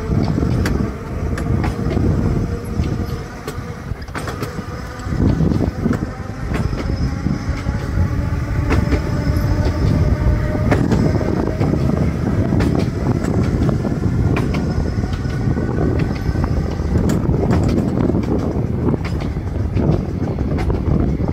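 Seaton Tramway electric tram running along its narrow-gauge track: a steady rumble of wheels on rail, with scattered clicks over the rail joints and a faint whine from the traction motors that drifts slightly in pitch.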